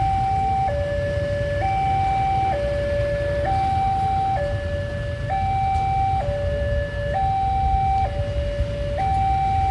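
Railway level-crossing alarm siren sounding a steady two-tone hi-lo warning, switching between a higher and a lower tone about every second, over a steady low rumble.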